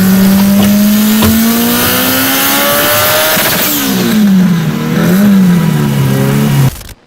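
Car engine running hard under acceleration, its pitch climbing steadily, then rising and falling several times before it cuts off abruptly near the end.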